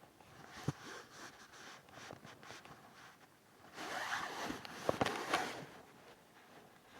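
Stomach growling: irregular raspy, gurgling rumbles, loudest from about four to five and a half seconds in, with a couple of sharp clicks about five seconds in.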